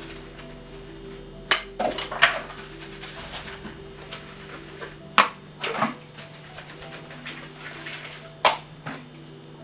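Metal pots and pans clanking as they are washed by hand at a sink: a few sharp knocks in small clusters, a couple of seconds apart. A steady low drone of tones runs underneath.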